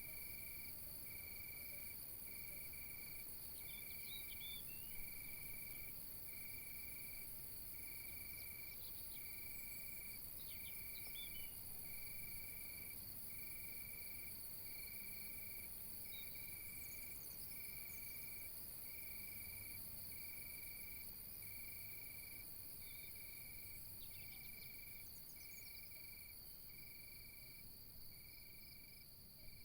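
Night insect chorus: a steady high trill with a cricket chirping evenly about once a second, and a few faint short bird chirps scattered through.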